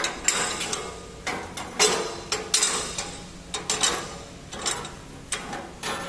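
Flat steel plates clinking and scraping against the steel slats of a welding table as gloved hands lay them side by side for a butt joint. About a dozen sharp metallic knocks and scrapes come at uneven intervals.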